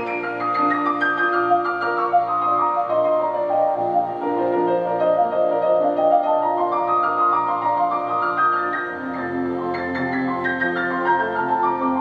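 Classical piano concerto played back through a Samsung HW-K550 soundbar. The piano plays runs that fall and then rise over held orchestral chords, and deeper notes come in about nine seconds in.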